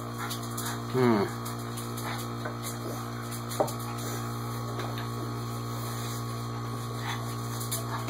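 Refrigerator compressor running as a vacuum pump: a steady low hum as it pulls close to 29 inches of vacuum. About a second in, a short whine falls in pitch over the hum, and a single sharp click comes a couple of seconds later.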